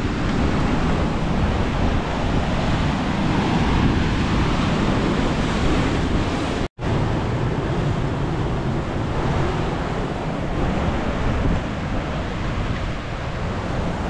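Atlantic surf breaking and washing over a flat rock shelf, with wind buffeting the microphone. The sound cuts out for an instant about halfway through.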